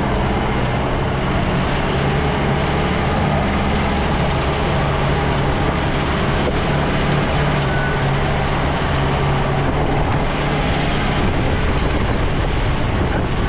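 Jeep driving along a rough off-road track: a steady engine drone mixed with continuous road and tyre noise.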